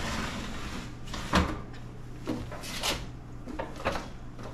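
Metal oven rack sliding back into the oven, with a few light clinks and knocks; the sharpest comes about a second and a half in.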